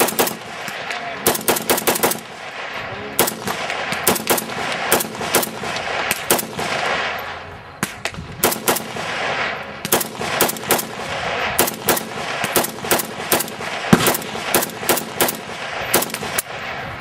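Rifle gunfire at a shooting range: dozens of shots fired in quick strings, some bunched so close they overlap, with echo ringing on between them.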